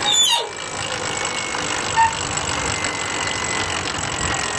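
Sailboat's inboard diesel engine running steadily under a haze of wind and water noise. A short falling squeal at the very start and a brief chirp about two seconds in.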